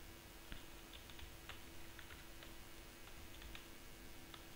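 Faint computer keyboard typing: a dozen or so soft, irregular key clicks over a low steady hum.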